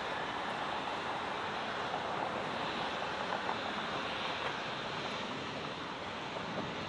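Steady jet roar of a Boeing 767 rolling along the runway, heard from a distance, with wind buffeting the microphone.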